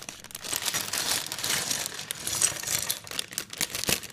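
Clear plastic bag crinkling as it is tipped and shaken, with plastic LEGO bricks tumbling out and clattering onto the table. One sharp click near the end.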